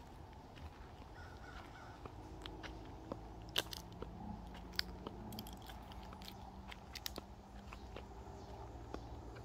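Footsteps crunching on dry leaf litter and a sandy path, heard as irregular sharp crackles and clicks over a low, steady rumble.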